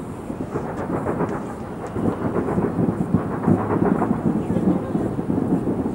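Distant fireworks: a dense, continuous rumble of many overlapping bursts and crackles, growing louder about two seconds in.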